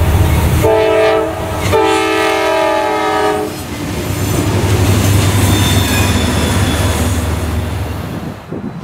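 Multi-chime locomotive air horn sounding two blasts, a short one and then a longer one, followed by the rumble of a passing train that fades near the end.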